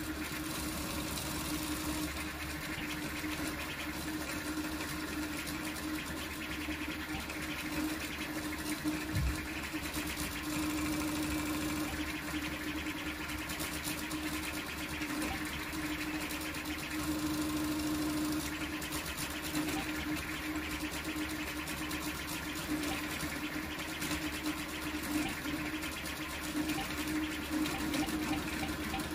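Large toolchanger 3D printer printing fast: stepper motors whirring through quick, short moves of the print head, with a fluctuating hum, over a steady rush of air from cooling fans.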